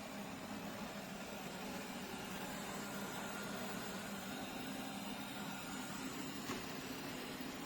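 Shark PowerDetect NeverTouch Pro robot vacuum running: a steady whir of its suction fan with a low hum underneath, and one brief click a little over six seconds in.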